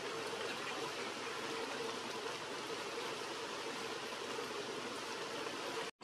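Steady rushing outdoor background noise, even and without any distinct bird call, that drops out for an instant near the end.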